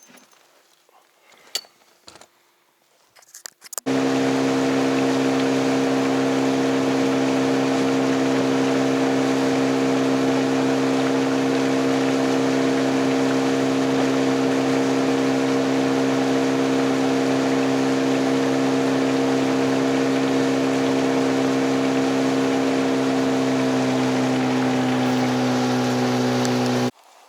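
Boat outboard motor running steadily at cruising speed, a constant drone that sags slightly in pitch shortly before it cuts off. Before it cuts in, about four seconds in, there are a few faint knocks.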